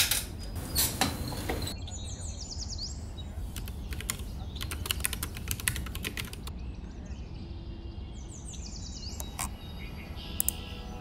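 Typing on a mechanical computer keyboard, with a quick run of key clicks about halfway through and a few scattered clicks and knocks at the start. A bird chirps in the background, a short series of falling notes twice.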